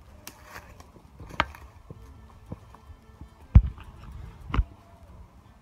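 Footsteps on dry forest floor, roughly one a second, with two heavier thuds a little past the middle.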